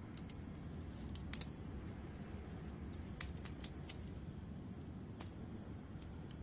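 Wood fire burning: a low steady rumble with scattered sharp pops and crackles from the logs.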